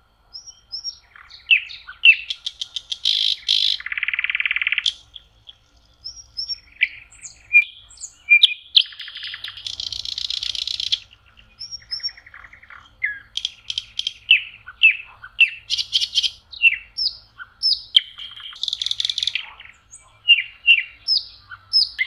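Nightingale singing: a varied run of phrases, rapid rattling trills, sharp whistled notes and quick falling slurs, each phrase a second or two long with short pauses between.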